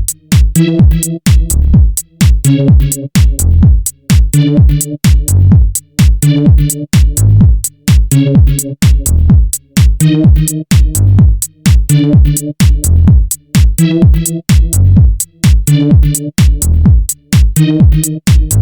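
Electronic dance music with a steady driving beat: sharp drum hits about three times a second over pulsing deep bass notes.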